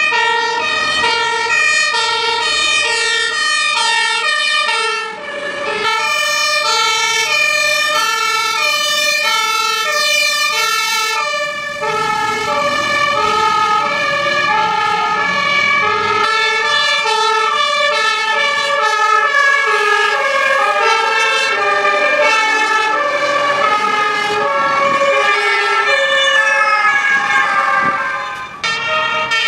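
Fire engine two-tone siren, alternating between a high and a low note about every half second, with a steady high tone sounding underneath.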